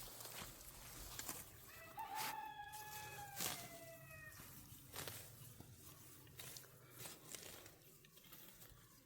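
A rooster crowing once: a single drawn-out call, falling slightly in pitch, about two seconds in. Scattered clicks and rustling come and go around it.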